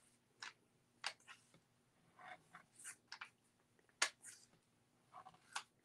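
Faint, scattered rustles and small clicks of paper being handled as adhesive glue dots are pressed onto a piece of vellum. The sharpest click comes about four seconds in.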